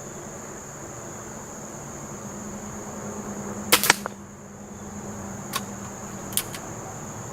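Benjamin Trail NP .177 nitro-piston break-barrel air pistol firing a single shot, a sharp double crack about four seconds in, followed by two faint clicks.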